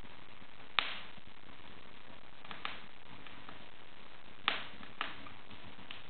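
Wood fire in an open fireplace crackling: sharp pops, one about a second in, a faint one midway, and two close together near the end, over a steady hiss.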